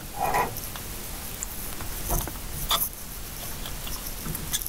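Light handling noises, scraping and a few sharp metallic ticks about two and three seconds in, as a brass fitting is unscrewed by hand from a copper heating pipe.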